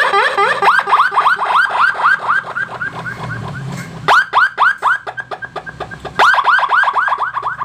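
Electronic police-escort siren module sounding through a mini horn speaker: a rapid run of falling chirps, about four a second, on its echo setting, so each run starts loud and fades away. The run restarts loud about four seconds in and again about six seconds in.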